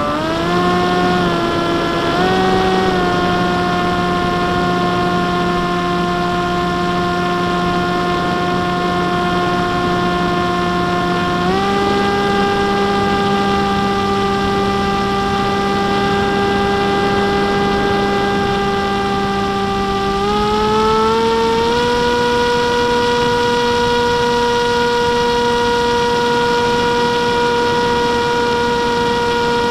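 The electric motor and propeller of a ParkZone F-27 Stryker flying wing, heard from its onboard camera as a steady buzzing whine over wind rush. The pitch steps up as the throttle is raised: twice in the first three seconds, again about twelve seconds in, and in a smoother rise about twenty seconds in.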